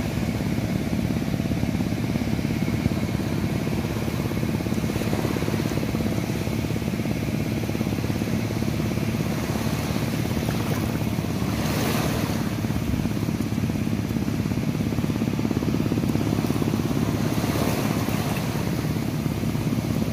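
Small waves washing up on a sandy shore: a steady surf wash, with two louder surges of breaking water about twelve and eighteen seconds in.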